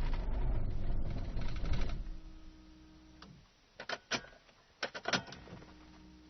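Starter motor cranking the Rover 623's Honda H23A3 engine without it catching, a no-start that the owner traced to a failed fuel pump. The cranking stops about two seconds in, leaving a faint steady hum and a few sharp clicks.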